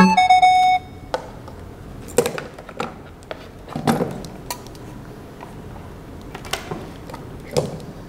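A short musical jingle ends in the first second. Then come light, scattered clicks and rustles as loose electrical wires and a small power-supply box with its cables are handled.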